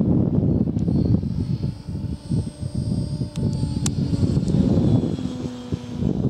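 Raptor E 700 electric RC helicopter, powered by a Scorpion brushless motor on a 10S battery, flying high overhead. Its rotor and motor noise runs steadily, rising and falling in loudness with a brief dip about two seconds in.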